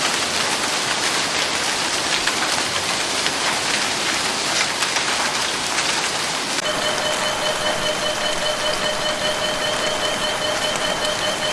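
Dense, steady patter of a hailstorm downpour pelting hard surfaces. About seven seconds in, a steady high tone joins and holds.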